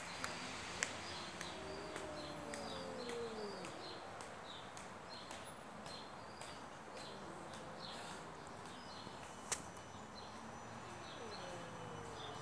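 Cats in a standoff yowling: faint, long, low moaning calls that waver up and down in pitch, one drawn out over about two seconds early on and another near the end. Small birds chirp throughout.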